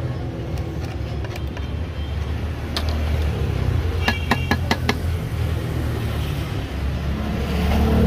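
A quick run of about six sharp metallic clicks about four seconds in, as the antique padlock's metal body is handled and tapped. Under it is a steady low rumble of street traffic.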